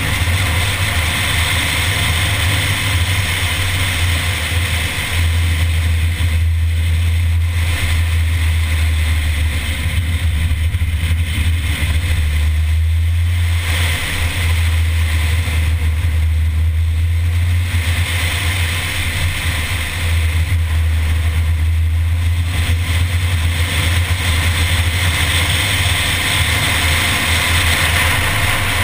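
A Mini driving along a winding road, heard from a camera mounted outside on the car: a steady low engine and road rumble under a loud hiss. The hiss eases briefly several times.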